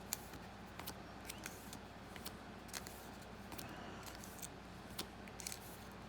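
Trading cards being handled and flipped through quickly by hand: faint, irregular small clicks and snaps over a low steady hum.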